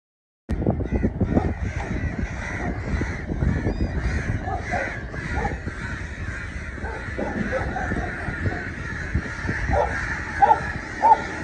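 Crows cawing again and again over a steady low rumble. The sound cuts in abruptly about half a second in.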